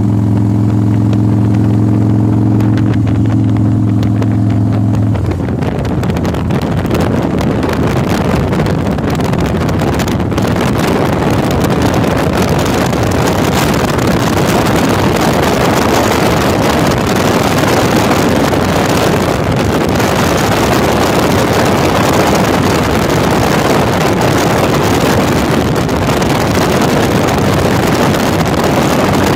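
Cruiser motorcycle running at a steady road speed, its engine note clear for about five seconds, then wind buffeting the microphone covers it for the rest.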